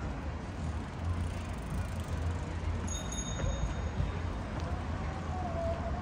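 Outdoor city background noise: a steady low rumble under an even hiss, with a faint brief tone or two.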